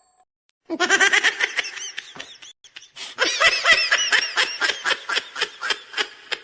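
Laughter in rapid pulses of several a second: one bout starting under a second in, a brief pause, then a longer second bout that fades out near the end.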